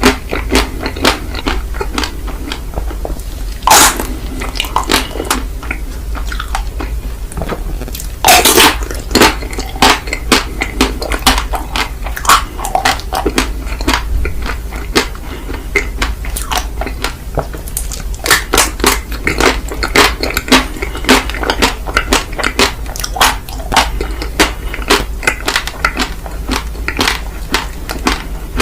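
Close-miked eating of ice cream: crunching bites and wet chewing in quick, irregular clicks, with two louder bites about four and eight seconds in, over a steady low hum.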